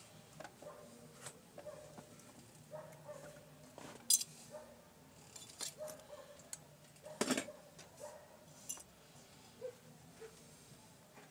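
Light metallic clicks and clinks from sewing machine parts and tools being handled on a Singer portable sewing machine during cleaning. They are scattered, and the sharpest come about four and about seven seconds in.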